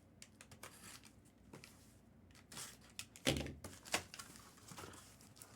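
Cardboard trading-card case being opened by hand: scattered light clicks and rustles of the packaging, with two louder knocks a little past the middle.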